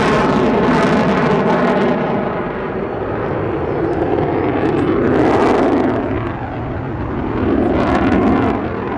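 Loud jet noise from an F-22 Raptor's twin Pratt & Whitney F119 turbofans as it flies past. It swells about halfway through and again near the end.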